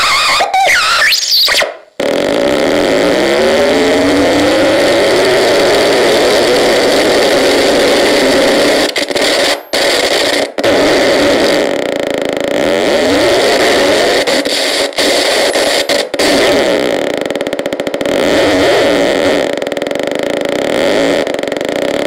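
Syntetizáro mini model 21 DUAL handmade synthesizer played by thumbs on its metal contacts: a warbling tone for about two seconds, then a harsh, dense noise drone with repeated rising pitch sweeps. It cuts out briefly a few times.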